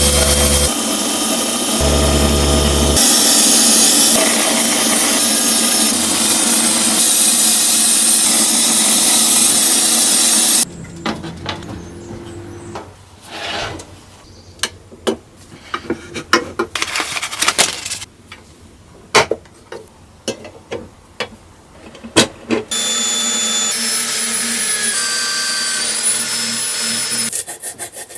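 A power tool running steadily under load for about ten seconds, then a quieter stretch of scraping, rubbing and sharp clicks from hand work, then the power tool running again near the end.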